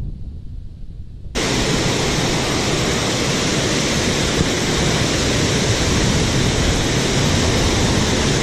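A low rumble, then about a second in a sudden switch to the loud, steady rush of water pouring over a dam spillway close by, churning white in the pool below.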